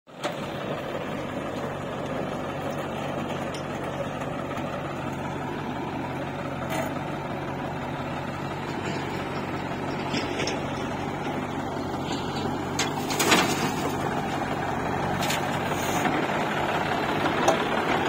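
Diesel engines of a John Deere tractor and a JCB 3DX backhoe loader running steadily, getting somewhat louder toward the end. There is a sharp knock about thirteen seconds in.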